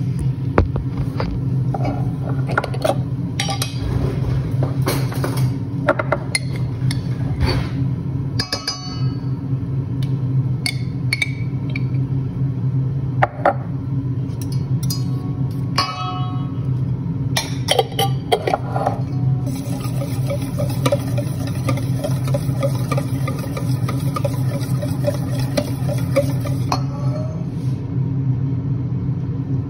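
Kitchen clatter: utensils and cookware clinking and knocking at irregular moments, over a steady low hum.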